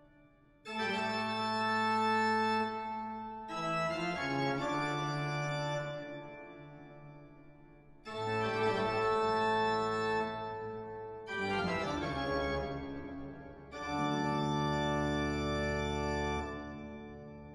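Organ music: slow, sustained full chords, each sounding sharply and then fading away over a few seconds before the next one comes in, about five times.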